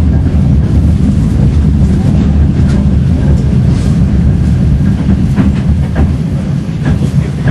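Tram running along street rails, heard on board: a steady low rumble with a few sharp clicks in the second half.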